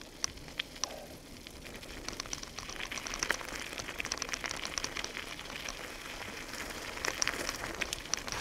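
Bicycle tyres rolling over a gravel track: a steady crackle of small stones with many scattered sharp clicks, a little louder after the first couple of seconds.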